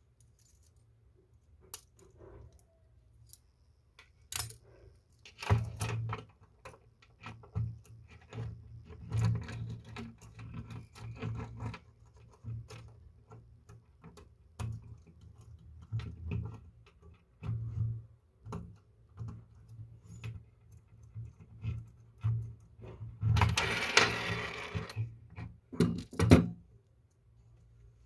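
Irregular small clicks, taps and metallic clinks of tools and brass parts being handled as a mechanical alarm-clock movement is fitted together, with a denser scraping, rattling stretch near the end.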